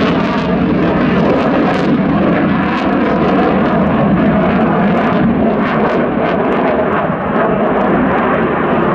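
MiG-21UM jet fighter flying a display pass, its jet engine a loud, steady rushing roar with a ragged crackle running through it.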